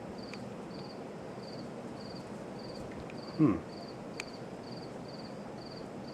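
1983 Casablanca Delta I ceiling fan running on high, a steady rush of moving air with a faint high chirp repeating about twice a second. About three and a half seconds in, a brief low sound falls in pitch, the loudest moment, with a light click or two around it.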